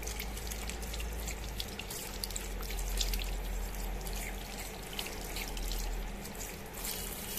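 Water running from a tap into a washbasin while a hand is rinsed under the stream, with steady splashing.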